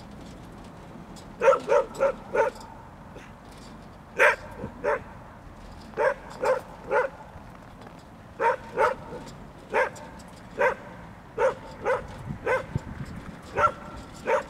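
A dog barking at a mock bear on a cart, in short runs of one to four quick barks with brief pauses between them.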